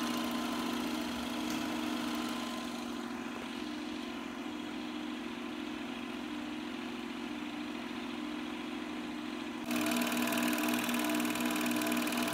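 Bell & Howell 253A 8mm film projector running, its motor and film mechanism giving a steady hum. The sound steps up suddenly, louder and brighter, about ten seconds in.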